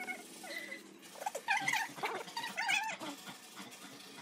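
A few short, wavering, high-pitched animal calls in quick succession.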